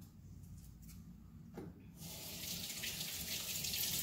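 Kitchen faucet turned on about halfway through, water running and splashing into the sink as hands are washed.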